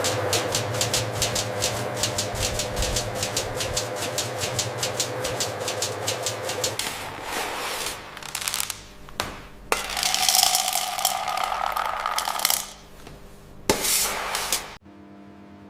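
Processing-line machinery clattering, with a fast, even run of clicks for about the first seven seconds. Quieter machine noise follows, then a louder stretch of running noise, and a short burst a little before the sound drops away near the end.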